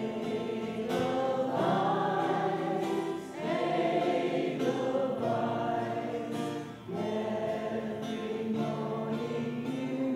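A choir of older men and women, whose members all live with aphasia, singing a song together in unison. The singing comes in three phrases with short breaks between them.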